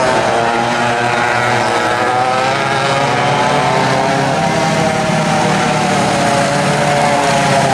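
Vintage racing go-kart engines running at speed on track, their buzzing note falling about two seconds in and climbing again later as the karts slow and accelerate through the course.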